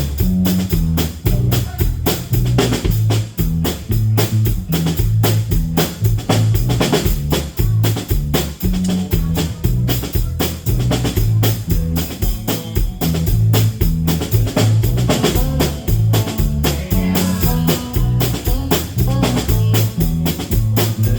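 Drum kit and electric bass guitar playing a steady groove together, with quick regular drum hits and prominent, moving bass notes. The bass has a buzz and distortion, which the players suspect comes from a bad battery in it.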